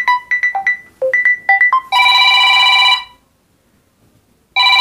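A Samsung Galaxy M30s playing a ringtone through its freshly replaced loudspeaker, which had been damaged by moisture and dust. A quick melody of short plucked notes is followed by a held ringing chord of about a second, and the chord comes again near the end. The sound comes through crisp, showing that the speaker fault is fixed.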